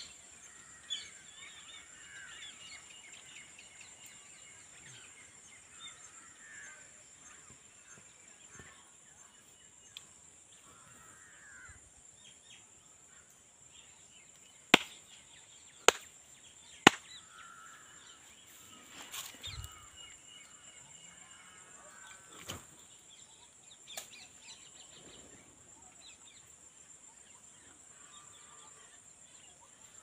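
A flock of parrots calling with short, scattered screechy chirps, over a steady high-pitched hum. Three sharp clicks about a second apart come near the middle and are the loudest sounds.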